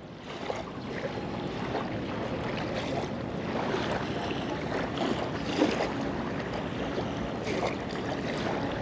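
Small river waves lapping steadily at a sandy shore, with wind on the microphone.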